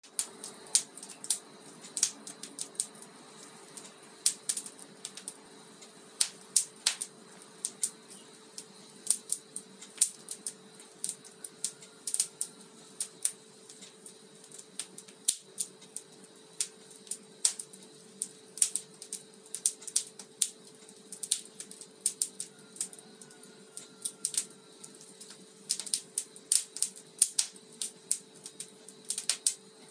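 Wood fire crackling in a fireplace: irregular sharp pops and snaps, sometimes in quick clusters, over a faint steady hum.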